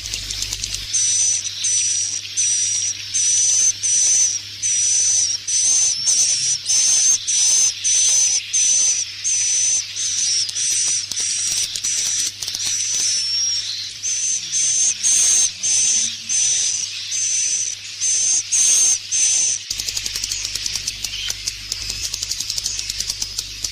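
Swiftlet roosting lure call: a dense, rapid high twittering of edible-nest swiftlets overlaid by short, sharp high chirps repeating about twice a second. The chirps stop near the end, leaving only the fast twittering.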